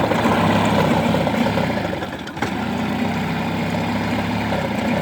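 1988 Mercury 9.9 hp two-stroke outboard motor running with a bad misfire, its sound sagging and catching again about two seconds in. The misfire comes from the kill-switch wire on the tiller handle intermittently grounding out.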